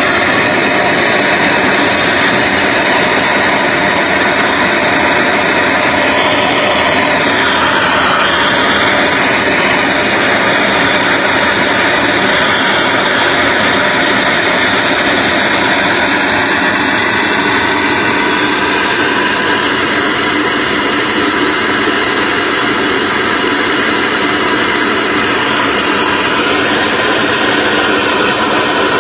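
Handheld propane torch burning with a steady loud hiss as its flame heats a flux-coated copper pipe joint for soldering. The tone of the hiss shifts briefly about seven seconds in and again near the end.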